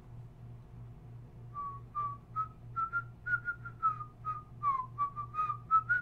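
A man whistling a tune: a quick run of short notes that starts about a second and a half in and carries on to the end.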